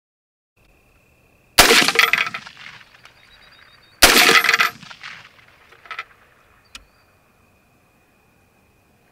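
.308 AR-10 rifle fired twice, about two and a half seconds apart, each sharp crack followed by about a second of echo dying away. Two much smaller clicks follow a couple of seconds after the second shot.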